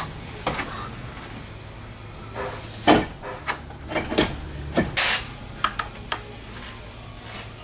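A series of knocks and clanks, with a short scrape about five seconds in, from a heavy truck battery being handled and set into its tray and its terminals fitted.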